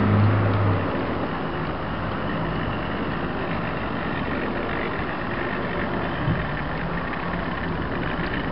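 00 gauge model of a GWR 45xx prairie tank locomotive running along the track towards the microphone: a steady noise of its small electric motor and wheels on the rails, with a single click about six seconds in.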